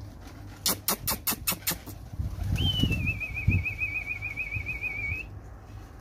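A pigeon keeper's whistle: a short higher note, then a thin warbling tone held for about two and a half seconds that stops sharply about 5 s in. About a second in, a quick run of about seven sharp claps comes first.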